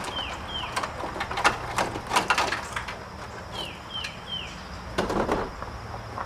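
Scattered knocks and clatter of car body parts being handled while a headlight is fitted. A bird calls twice, once near the start and once past the middle, each time three quick falling chirps.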